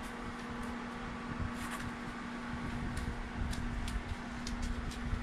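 A steady mechanical hum with low rumble, and scattered faint ticks, more of them in the second half.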